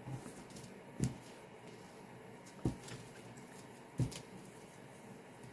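Three short, soft clicks spread over a few seconds as small bags of diamond-painting drills are handled at a table.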